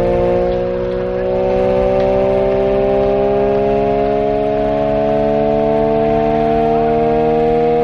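Vintage WWII air raid siren winding up, its wail of several tones rising slowly and steadily in pitch, with a steady low hum beneath.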